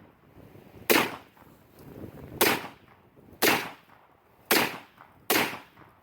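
World War II rifle fired five times in quick succession, roughly a second apart, each shot a sharp crack with a short fading echo.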